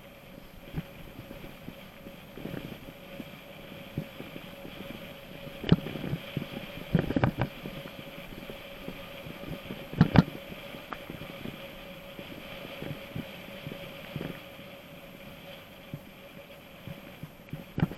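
Mountain bike rolling along with a steady whir, jolted by bumps: a few sharp rattling knocks about six, seven and ten seconds in.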